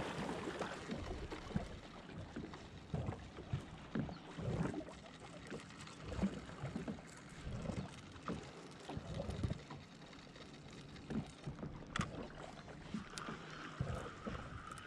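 Small waves lapping and slapping irregularly against the hull of a drifting Sea-Doo jet ski, with no engine running.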